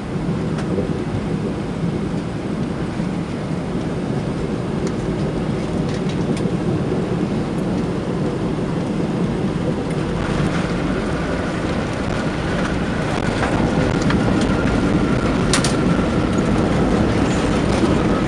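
Cabin noise inside a Boeing 757-200 airliner during landing: a steady engine and airflow rumble. A thin high engine whine comes in about ten seconds in, and the noise grows louder soon after.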